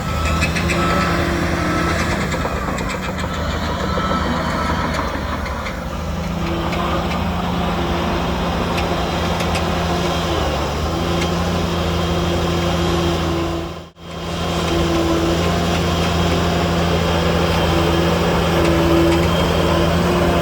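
Heavy diesel earth-moving machinery running steadily: a bulldozer or dump truck engine under load. Faint repeated beeps can be heard in the first few seconds, and the sound cuts out briefly about two-thirds of the way through.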